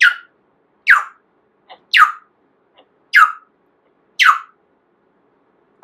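Pet parrot giving five loud, short calls about a second apart, each a quick downward sweep in pitch.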